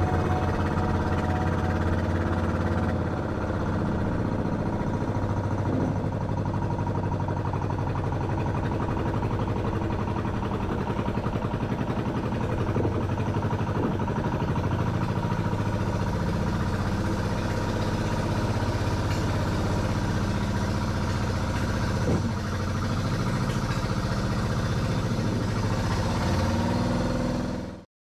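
A small boat's engine running steadily at an even speed, a continuous mid-pitched drone with a fast regular beat.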